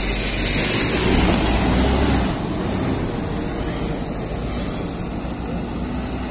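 Large intercity coach's engine running as the bus pulls away. It is loudest for about the first two seconds while the bus is close, then quieter and steady as it moves off.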